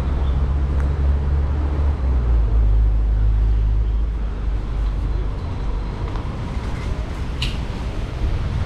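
Street traffic noise: a heavy road vehicle's engine rumbles low and steady for the first four seconds or so, then passes and leaves an even traffic hum. A brief high squeak sounds near the end.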